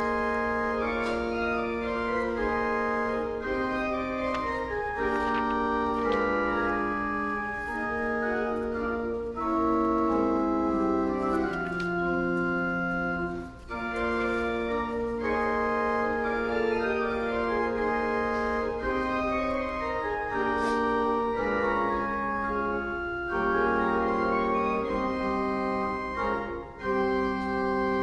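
Church organ playing slow, sustained chords in phrases, with a brief break between phrases about halfway through and another near the end.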